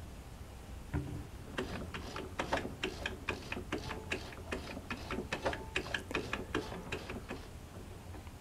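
The exposed internal mechanism of a Jaguar 592 portable sewing machine, freshly oiled, being worked slowly by hand. Its gears and linkages give a run of irregular light clicks and ticks, several a second, after a soft knock about a second in.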